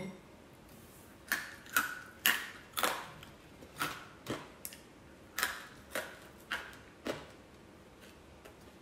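Close-up eating sounds: a run of short wet smacking clicks, about two a second, that stops about seven seconds in.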